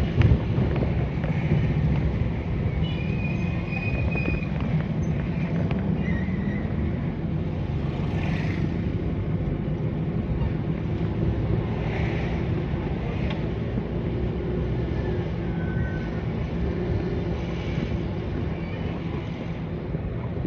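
Steady low rumble of a van driving along a paved road, its engine and road noise heard from inside the cabin.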